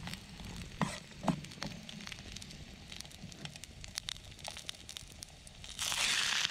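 Garlic cloves frying gently in hot oil in an aluminium camping pot, with scattered crackles and a few clicks of a metal spork against the pot. About six seconds in, raw chicken goes into the pot and a loud sizzle breaks out.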